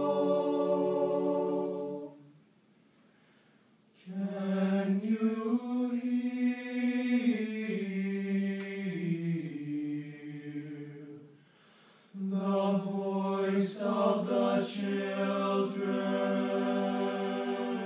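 Eight-voice male a cappella ensemble singing in close harmony. A held chord cuts off about two seconds in, followed by a two-second rest; then a phrase with moving inner parts, a brief break, and a new phrase that settles on a held chord.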